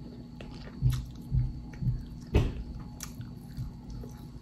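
A person chewing barbecued pork ribs, with soft wet thumps about every half second and one sharper click a little past halfway.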